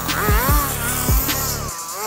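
Background music: an electronic beat with deep kick drums that drop in pitch and a wavering, gliding synth line.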